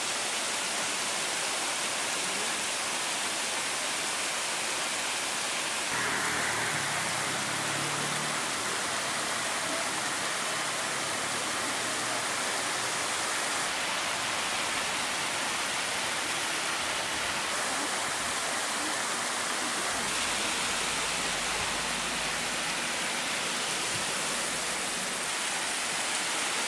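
Heavy rain mixed with hail pouring down: a dense, steady hiss that shifts in tone a few times.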